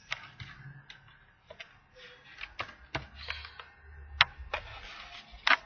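Irregular clicks of a computer keyboard and mouse, about nine in all, the sharpest about four seconds in and again near the end.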